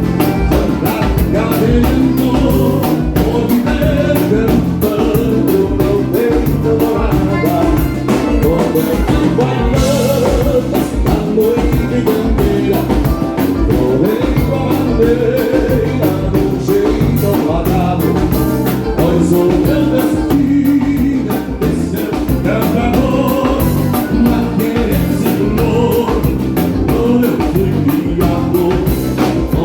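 Live dance band playing a vanera, the gaúcho dance rhythm, with a steady drum-kit beat and a singing voice.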